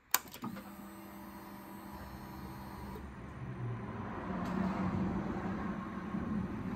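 Ignition key on a Suzuki Hayabusa turned with a click, then a faint steady electric whirr for about three seconds as the fuel pump primes with the ignition on. A low hum follows and slowly grows louder before the engine is started.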